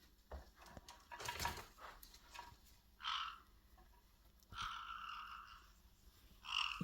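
Caique parrots calling: a short call about three seconds in, a longer one held for about a second past the middle, and another short call at the end. A few clicks and a brief rustle come in the first two seconds.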